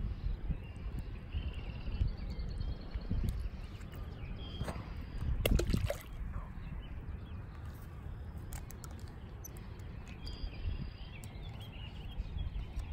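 Wind buffeting the microphone with a fluttering low rumble, while small birds chirp now and then. About five seconds in there is a brief, louder rush of noise.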